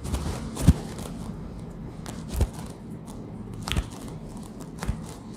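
Handling sounds during a chiropractic adjustment: rustling of clothing and hands on the treatment table, broken by four short thumps, the loudest about a second in.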